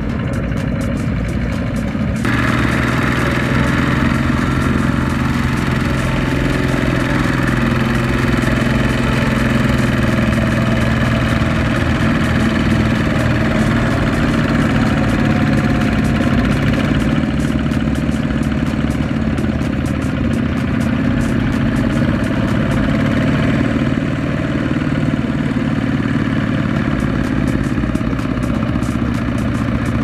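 Single-cylinder diesel engine of a two-wheel walking tractor running steadily while it pulls a loaded trailer through mud. The sound changes abruptly about two seconds in, then runs on evenly.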